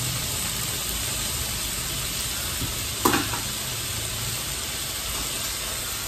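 Beef rolls wrapped around enoki mushrooms sizzling steadily on a tabletop grill plate, with a single short knock about three seconds in.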